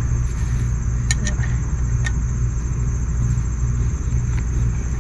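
A steady low rumble, with a thin high steady whine above it. A few light metallic clicks about one and two seconds in come from a new brake caliper and its bolts being handled.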